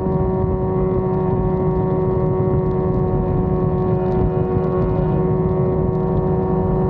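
Yamaha FZ6's inline-four engine running at steady revs, its pitch holding constant while riding, over a dense low rumble.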